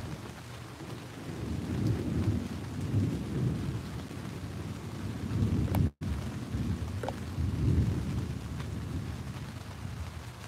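Heavy rain pouring down steadily, with low thunder rumbling in two long swells. The sound drops out for an instant about six seconds in.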